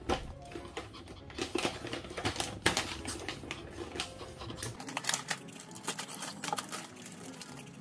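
Plastic zip-top bag of dried pet food being handled, crinkling and rattling in irregular clicks.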